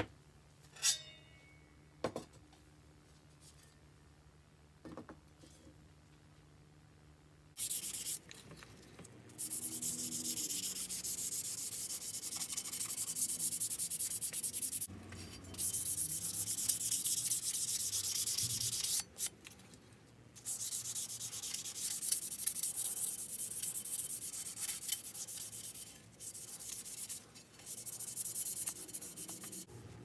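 Sandpaper rubbed by hand over the thin curved boiler plate of a model steam locomotive: long runs of scratchy sanding strokes with short pauses, starting about a quarter of the way in. Before it, a few light knocks.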